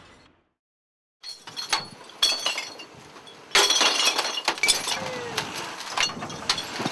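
Glass bottles being tipped from a lifted mesh cage into a large collection bin. After a brief silence come scattered clinks, then from about three and a half seconds in a loud, continuous clatter of bottles tumbling down.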